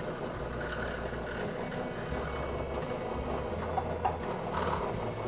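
Drill press running, its bit being fed slowly down into soft plywood to bore a hole, with a steady low motor hum.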